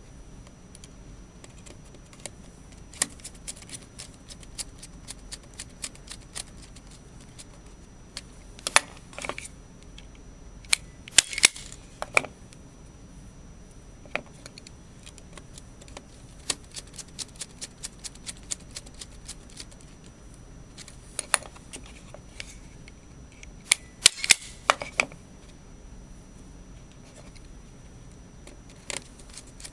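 Hand work on wiring at screw terminal blocks: many scattered sharp clicks and snaps with small handling noises, as wires are stripped and pushed into the terminals, with a few louder bunches of snaps.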